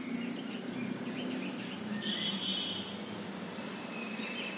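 Faint bird chirps over steady background noise, with a short trill about two seconds in.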